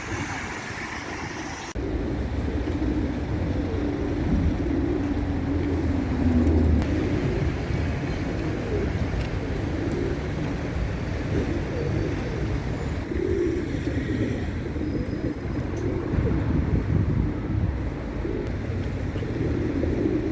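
Pigeons cooing, low wavering coos repeating over a steady low rumble. The sound changes abruptly about two seconds in.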